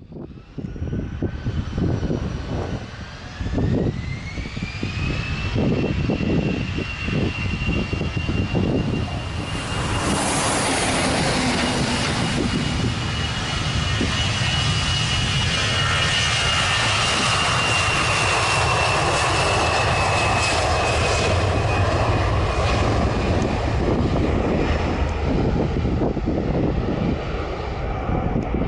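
Twin-engine jet airliner's engines spooling up for takeoff: a whine rises in pitch over a few seconds and holds. A broad, loud jet noise then swells as the aircraft rolls and climbs past, with the whine sinking slowly in pitch near the end.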